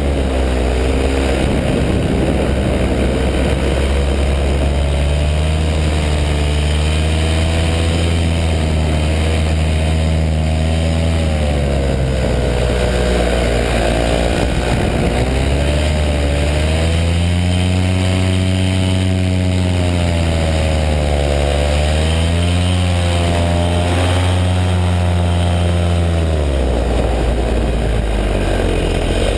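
Paramotor engine and propeller running loudly in flight, its pitch sagging and climbing again several times as the throttle is eased and opened.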